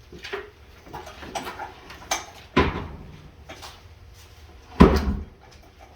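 Scattered metallic clanks and knocks of hand tools and truck parts being worked, with two heavier thuds about two and a half seconds and nearly five seconds in, the second the loudest.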